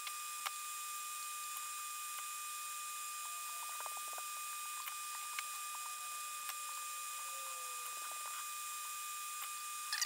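Faint rustling and light clicks of hookup wires being handled and bent at an amplifier's eyelet board, over a steady hiss with a thin high-pitched tone, and a brief sharper scratch right at the end.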